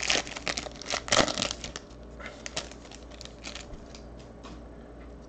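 Foil wrapper of a Panini Luminance football card pack crinkling and tearing open, with the cards clicking and sliding against each other as they are pulled out and handled. A dense crackly burst in the first second and a half, then a few sparse light clicks that die away.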